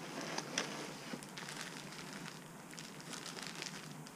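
Plastic parts bags from a model truck kit crinkling and crackling quietly as they are handled, with a few small clicks from the parts inside.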